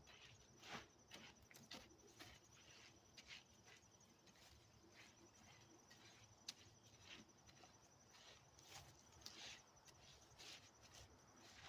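Faint, irregular scraping and rustling of a pile of shelled corn and deer attractant being stirred and mixed by hand.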